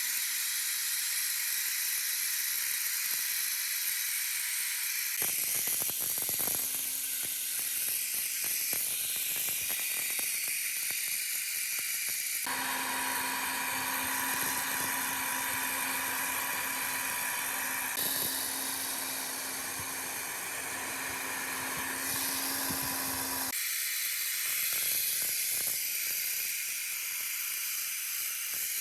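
A small high-speed power tool running steadily with a hissing whir and a steady whine, in several clips joined with sudden cuts.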